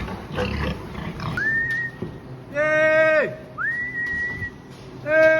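Pigs squealing: two long, level squeals that drop in pitch as they end, with thinner high whines rising in between.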